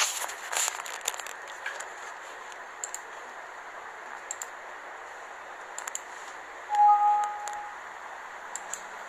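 A handheld phone camera being moved about, with rubbing and bumping in the first second, then a steady hiss with a few faint clicks. About seven seconds in there is a short steady beep, under a second long.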